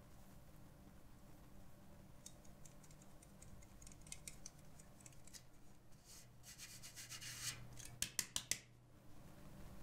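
Stainless steel mesh sieve being shaken to sift cake flour, a soft scratchy rustle of flour and rim that grows busier, then four quick sharp taps of the sieve near the end.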